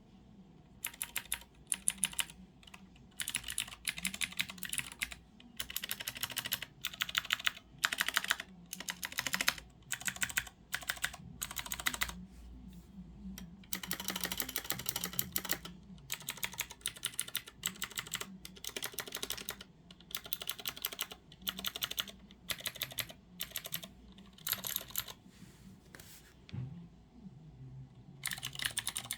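Typing on a Leopold FC660M mechanical keyboard with clicky Cherry MX Blue switches: fast runs of sharp key clicks broken by short pauses, with a longer pause near the end.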